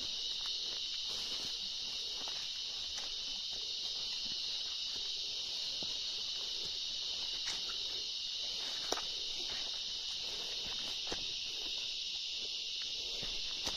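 Steady, high-pitched chorus of forest insects, with faint footsteps and occasional small knocks.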